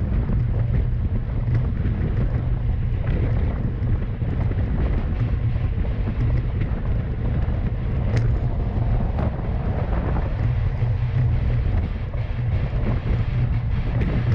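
Wind buffeting the microphone of a bike-mounted action camera on a road bike riding at about 55 km/h: a steady, loud low rumble.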